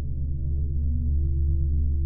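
Background music: a low, steady ambient drone of held tones, without beat or melody.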